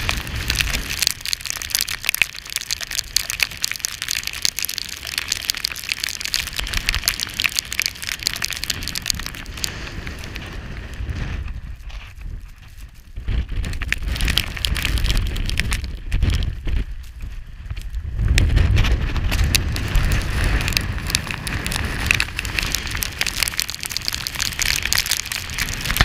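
Blizzard wind buffeting the microphone in a loud low rumble, with wind-driven snow pelting it in a dense crackle. The crackle dies away for a few seconds near the middle while the gusts carry on.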